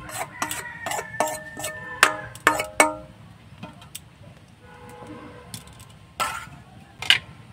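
Stainless steel bowl clinking and scraping against the rim of a steel plate as thick batter is emptied out: a quick run of ringing metallic clinks for about three seconds. Two single sharper knocks follow near the end.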